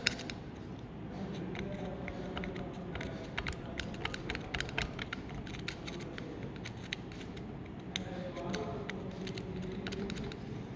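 Scattered light clicks and clinks of small metal parts and a hand tool being handled on a workbench.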